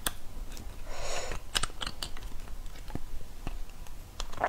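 A small spoon scraping and clicking against a braised beef bone as marrow is dug out of it, with an irregular run of sharp clicks.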